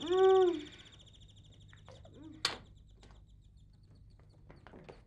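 Electric doorbell ringing with a rapid, trilling high tone that dies away about a second in. A woman's short, loud drawn-out vocal sound comes at the start, and a single sharp click of the door handle or lock comes about halfway through.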